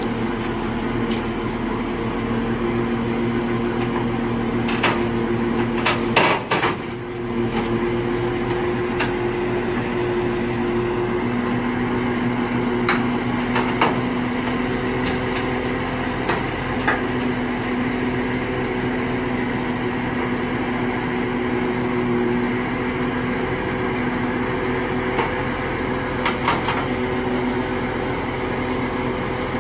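Steady machine hum with several held tones, broken by a few sharp knocks, the loudest cluster about six seconds in.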